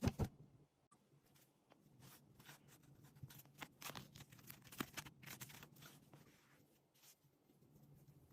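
Faint unboxing handling sounds: a couple of clicks at the start, then scattered light taps and rustles of packaging and small items for a few seconds in the middle.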